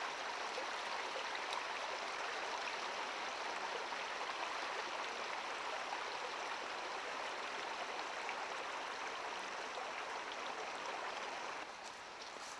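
Shallow stream running over stones: a steady rush of water, turning quieter about a second before the end.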